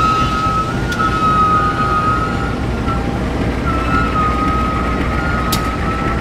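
KAI CC201 diesel-electric locomotive passing slowly at close range, its engine a steady deep rumble. Over it a high squealing tone wavers, breaks off about two and a half seconds in, and returns about a second later.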